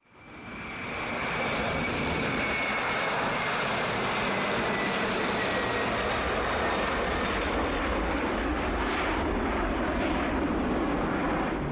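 Boeing 747 taking off, its four jet engines running at takeoff power. The steady engine noise fades in over the first second or so, and a high whine falls slowly in pitch.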